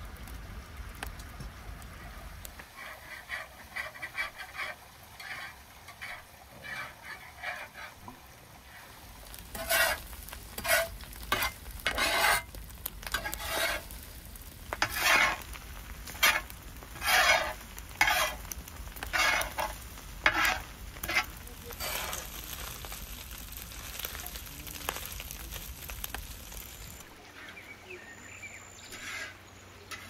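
Shredded lamb frying in a large wide black pan, a spatula scraping and turning the meat in repeated strokes over a steady sizzle. The strokes grow much louder about a third of the way in, roughly one a second, then stop and leave only the sizzle.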